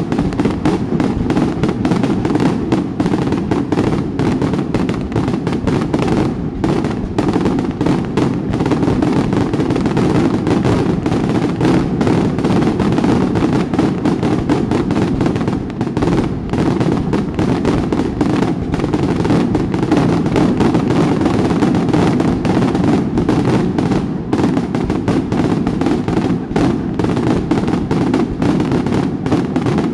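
Fireworks finale: shells bursting in a dense, unbroken barrage of booms and crackles that overlap without a pause.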